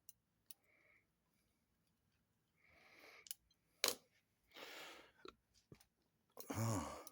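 Scattered light clicks and short rustles of hands handling a motorcycle brake master cylinder and its parts, with one sharper click about four seconds in. A brief low hum-like sound comes near the end.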